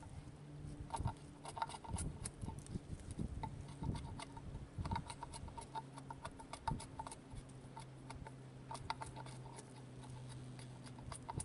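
Irregular light ticks and clicks of a blade cutting and shaving green oak on a mallet handle, several a second with brief pauses, over a steady low hum.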